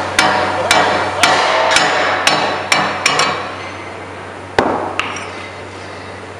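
Hammer blows on the steel friction brake cover of a ladle gearbox shaft, knocking the cover off for adjustment. Sharp, ringing metal strikes come about two a second for the first three seconds, with two last hard blows near the end.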